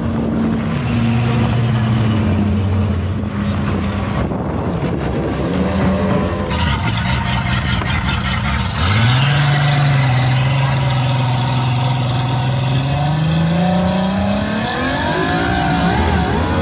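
Racing powerboat engine running: its pitch drops early on, picks up sharply about halfway, holds steady, then climbs as the throttle opens near the end.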